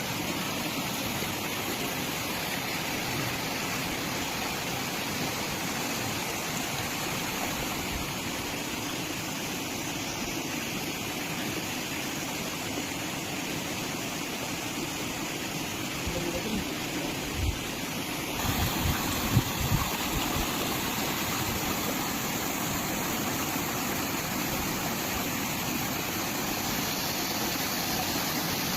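Waterfall water rushing with a steady, even noise. A few low bumps, likely wind or handling on the microphone, come about two-thirds of the way through.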